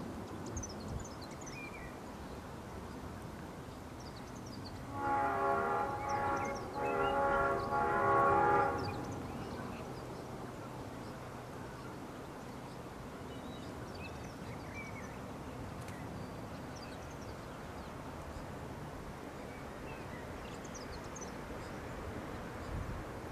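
Diesel locomotive horn sounding from the approaching train while it is still out of view: a short blast followed by a longer one of about two seconds, about five seconds in. A steady low rumble and scattered bird chirps run underneath.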